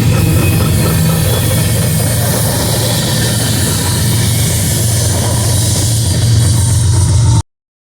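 Diesel locomotive engine running with a steady low hum over broad rail noise, cut off abruptly near the end.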